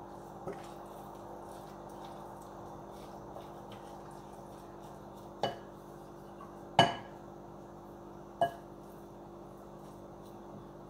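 Wooden spoon tossing salad in a glass bowl: soft stirring, then three sharp knocks of the spoon against the glass about a second and a half apart, each ringing briefly, the middle one loudest. A low steady hum runs underneath.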